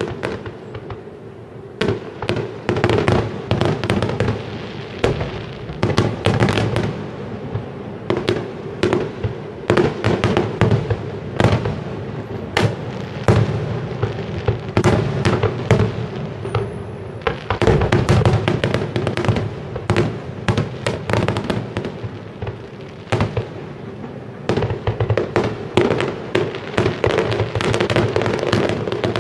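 Fireworks display: aerial shells bursting in quick succession, a dense run of sharp bangs and crackling with hardly a pause.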